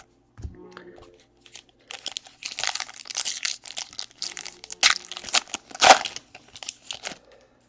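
Crinkling rustle of a trading-card pack wrapper being torn open and handled, a dense crackle of rustles starting about two seconds in and dying away near the end.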